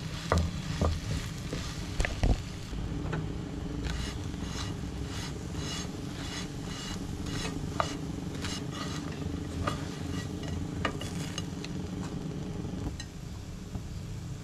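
Garlic bread frying and sizzling in a nonstick pan, with a few sharp clacks of tongs against the pan in the first couple of seconds as the slice is turned. The sizzle is steady and crackly, then eases near the end.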